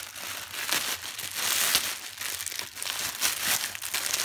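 Plastic courier mailer bag crinkling and rustling as it is handled and opened, an irregular run of crackles.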